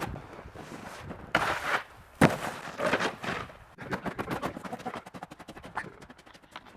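Snowboard hitting the snow: a short hiss of noise, then one sharp thud about two seconds in, followed by scattered small crackles and clicks.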